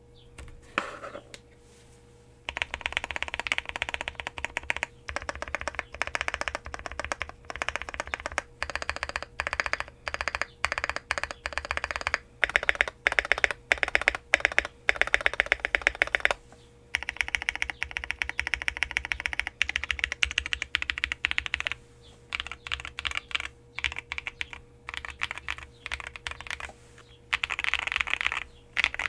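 Space80 Apollo mechanical keyboard with lubed, filmed Holy Panda tactile switches on an FR4 plate and a masking-tape mod, typed on fast in long runs of keystrokes with short pauses. The keystrokes have a poppy, popcorn-like sound, loudest about halfway through.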